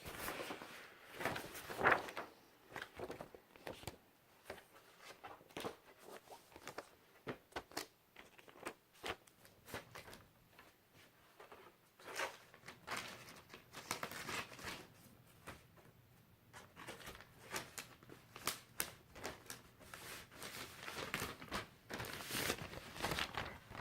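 Record and CD packaging being handled: plastic and paper crinkling and rustling, with scattered light clicks and taps.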